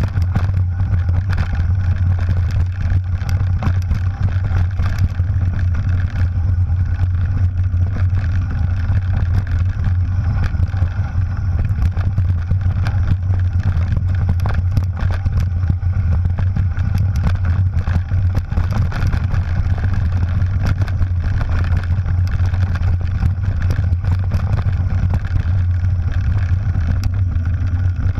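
Mountain bike descending a rough dirt and rock trail, heard through a bike-mounted action camera: a steady low rumble of wind and vibration with frequent small knocks and rattles as the bike hits bumps.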